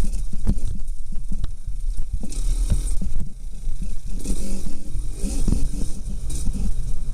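A dirt bike rolling slowly downhill over a rough dirt trail, heard from a camera mounted on the bike: a low, steady rumble with many short knocks and rattles as it goes over bumps, with brief hissy rushes now and then.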